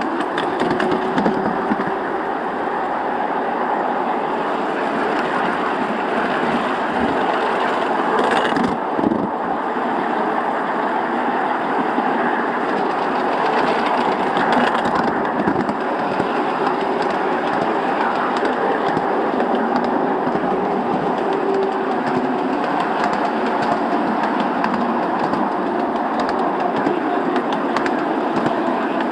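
Miniature ride-on railway train running along its track: a steady rumble of the wheels on the rails, with scattered clicks from the rail joints and a sharper knock about eight or nine seconds in.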